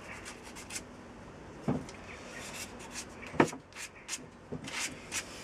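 Emery cloth rubbed by hand over the rusty steel axle ends of a small railway wheelset, in short, quick scratchy strokes, taking off the worst of the rust so the bearings will slide on. Twice a sharp knock, about a third of the way in and again past the middle, the second the loudest.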